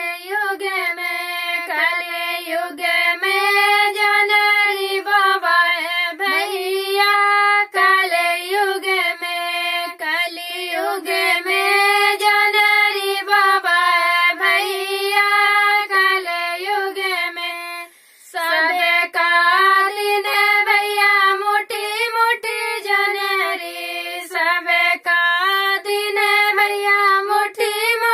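Two women singing a Bagheli gari geet (a women's folk song) together, unaccompanied, with a brief pause for breath about 18 seconds in.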